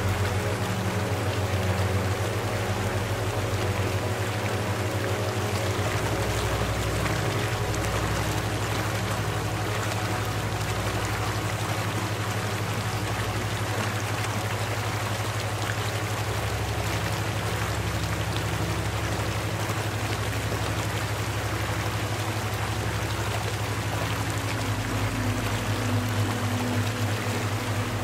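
Steady rushing water, like a flowing stream, layered over a low droning hum. The deepest notes of the hum shift every several seconds.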